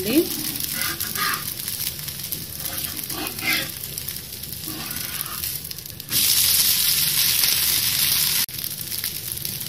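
Rava dosa frying in oil on a hot pan, sizzling steadily, with a spatula scraping at the edges now and then in the first half. The sizzle turns suddenly louder about six seconds in and falls back a couple of seconds later.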